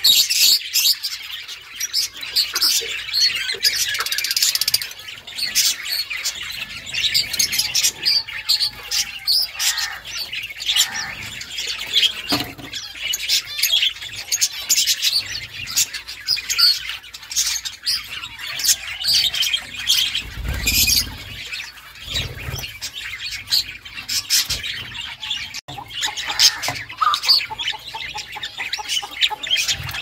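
Budgerigars chattering: a dense, unbroken stream of rapid, high chirps and warbles. A couple of low bumps come about two-thirds of the way through.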